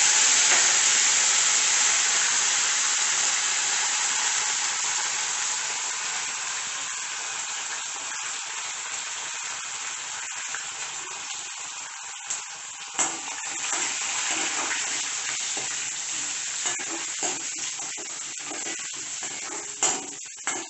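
A tempering of mustard seeds, red chilli, urad dal and curry leaves sizzling in hot oil in a steel kadai, loudest at the start and dying down steadily. A few sharp clinks of utensils in the second half.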